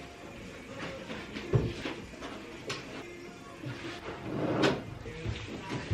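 Scattered knocks and clatter of wardrobe and closet-system parts being handled and fitted during assembly, with a few louder knocks about a second and a half, under three seconds and four and a half seconds in.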